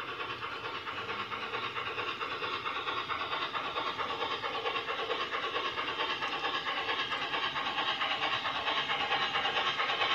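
LGB Class IVk Meyer G-scale model steam locomotive running along garden railway track, a steady fast rhythmic rattle that grows gradually louder as it approaches.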